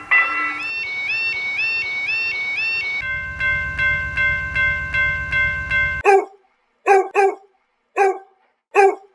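A sequence of odd, electronic railroad-crossing alarm sounds: a repeating tone that bends up in pitch about two and a half times a second, then a steady chime over a low buzz pulsing about twice a second, then four short bark-like sounds about a second apart.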